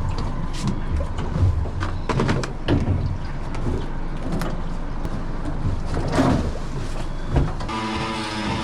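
Boat engine running under irregular knocks and clatter on deck, with music coming in near the end.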